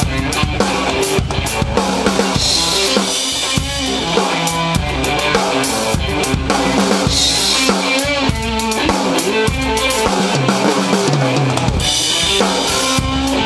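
Live drum kit and electric guitar jamming: steady kick, snare and tom hits under sustained guitar notes, with a crash cymbal wash about every four to five seconds. The lowest notes drop out for about a second roughly three-quarters of the way through.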